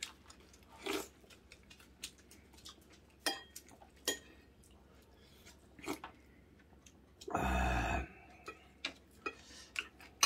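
Sparse clicks and taps of chopsticks and spoons against dishes, with some chewing, during a meal. About seven and a half seconds in comes a louder half-second rush of noise.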